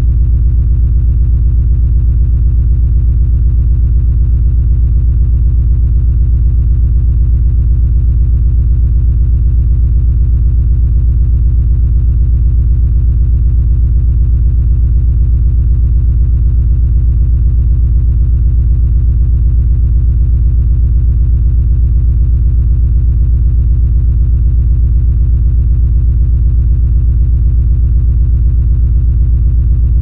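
Engine rumble sound effect: a loud, low, steady rumble with a fast, even throb, unchanging throughout, its weight deep in the bass.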